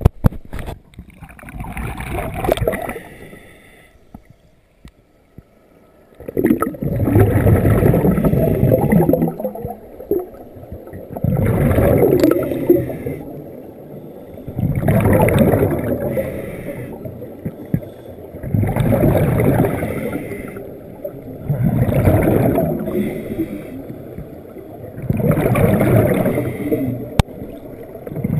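Scuba diver breathing through a regulator underwater: bursts of exhaled bubbles gurgling out about every three and a half seconds, with quieter inhalations between, settling into this rhythm a few seconds in.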